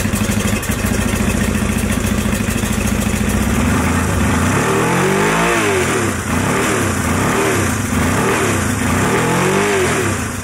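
Honda CJ396T motorcycle engine running just after being kickstarted for the first time since 1982. It holds a steady idle for about four seconds, then is revved up and let fall back four or five times.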